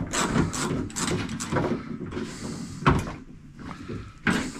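Socket ratchet clicking in quick strokes as it tightens the nut that holds an exterior door handle on a truck door, followed by two sharper knocks against the door.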